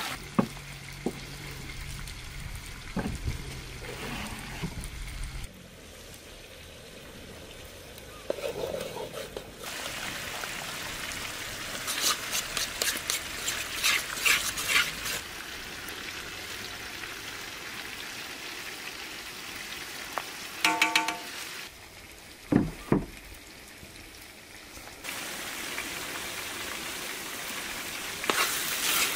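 Chopped green seasoning sizzling and bubbling in a large metal pot over a wood fire, stirred with a metal spoon that scrapes against the pot in quick strokes. A brief metallic ring and a couple of low knocks come about two-thirds of the way through.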